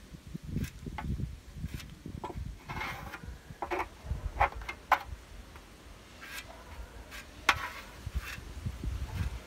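Plastic spreader scraping and smearing body filler across a hard painted panel: soft scrapes with a few sharp clicks and taps, the sharpest about halfway through and again near the end, over an uneven low rumble.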